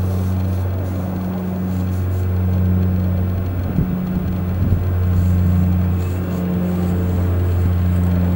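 JAS 39 Gripen fighters' jet engines running at taxi power, a steady low drone that swells and fades a little, with two soft knocks about four and five seconds in.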